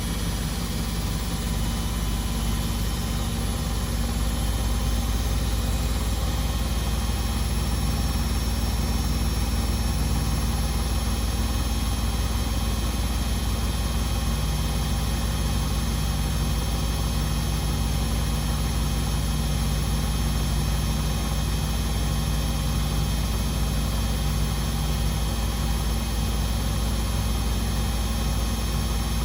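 Beko WMD 46160 washing machine with its drum spinning at a steady speed, giving a constant motor hum and whine with a strong low rumble.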